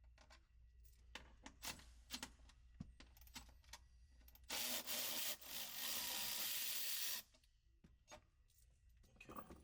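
Ratchet wrench working the Sprinter's 13mm top shock mount bolts. Scattered clicks and knocks, then a loud rasping ratchet run of about two and a half seconds starting a little before halfway, broken once, then more light clicks of tools and metal parts.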